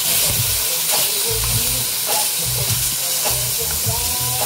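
Bacon pieces sizzling in a hot enamelled Dutch oven as the fat renders, a steady hiss, with a spatula stirring and scraping them around the pot.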